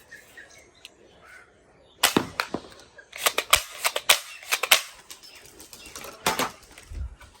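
Toy guns firing: sharp cracks and snaps in clusters, a few about two seconds in, a rapid run of them from about three seconds, and a couple more near the end.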